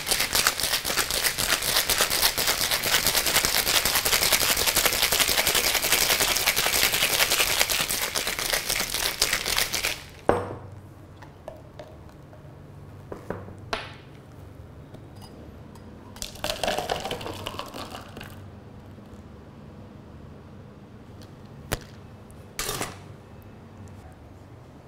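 Ice rattling in a stainless-steel cocktail shaker of milk tea shaken hard and fast. The rattling stops abruptly about ten seconds in, and a few sharp knocks and clinks follow.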